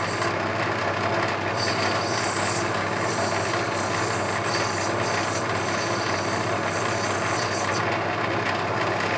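Lapidary grinder's motor running steadily with a 600-grit diamond wheel, and the hiss of opal being ground wet against the wheel. The grinding hiss comes and goes and drops away near the end as the stone is lifted off the wheel.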